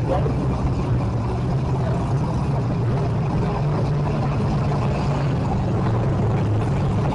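Engines of several pre-1980s banger cars running together in a destruction derby, a steady low drone with no single crash standing out.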